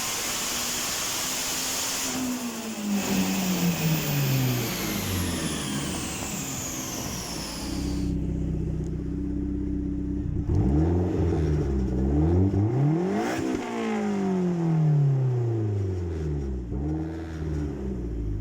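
Turbocharged Toyota 3S-GE four-cylinder engine coming down off revs, with a high whine falling in pitch and fading out over several seconds. It settles to a steady idle for a couple of seconds, then is revved again and again, the pitch rising and dropping with each blip.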